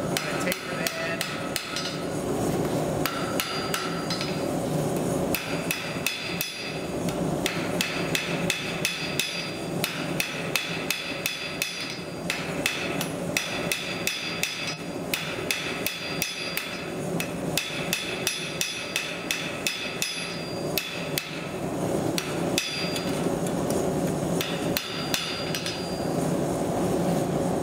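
Hand hammer striking hot steel on an anvil, tapering the end of a half-inch square bar: runs of quick blows with short pauses, the anvil ringing with each run. A gas forge runs steadily underneath.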